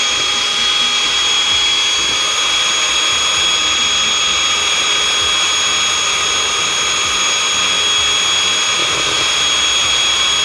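Electric hand mixer running steadily with a high whine, beating whipping cream until it turns foamy.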